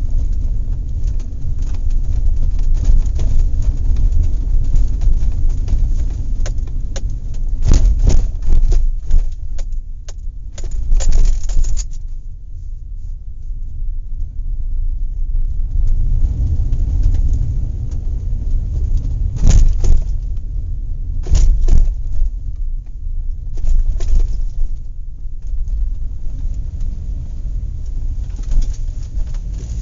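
Inside a moving car: a steady low road-and-engine rumble, with the load and cabin shaking and rattling over bumps. Several loud jolts and clatters come through, a quieter stretch falls about midway, and the rumble swells again.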